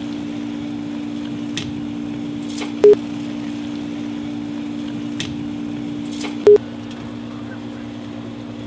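A steady electronic hum with short, loud beeps repeating about every three and a half seconds, and a few faint clinks of a plate against a steel pot.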